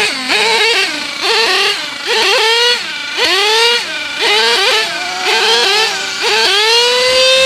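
Small two-stroke nitro engine of a Savage RC monster truck revving in quick repeated throttle blips, its whine rising and falling about twice a second. Near the end it climbs and holds steady at a high-pitched whine at full throttle.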